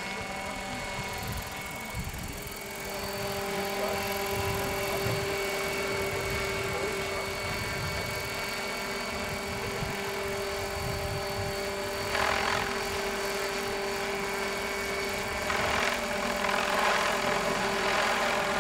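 Electric MD500 scale RC model helicopter in flight carrying a heavy slung load: a steady whine from its electric motor and rotor, with two brief rushes of noise, one past the middle and one near the end.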